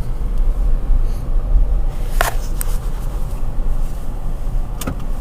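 Car interior noise: a steady low rumble of the engine and road heard from inside the cabin, with a couple of sharp clicks about two seconds in and another near the end.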